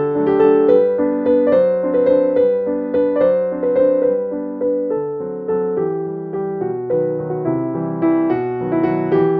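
Background piano music: a melody of notes that each ring and fade.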